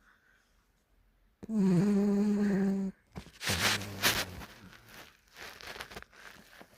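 Sleeping dog snoring: after a quiet second or so, one long snore on a steady pitch, followed by noisier, rougher snoring breaths.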